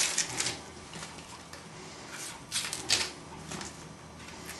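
Dry brown onion skin crackling and rustling as it is peeled off by hand, in short bursts near the start and again a few times about two and a half to three and a half seconds in.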